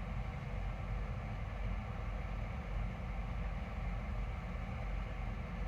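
Diesel engine idling steadily, a low even rumble.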